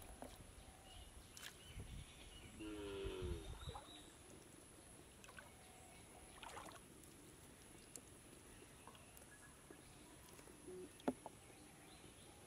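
Faint sloshing and small splashes of shallow water as hands work a wet fishing net, with a few light clicks. A short hum-like sound comes about three seconds in.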